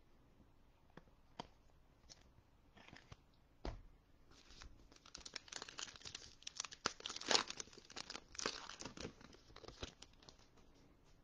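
The foil wrapper of a trading-card pack being torn open and crinkled, crackling for several seconds. Before it come a few faint clicks and a soft thump about four seconds in.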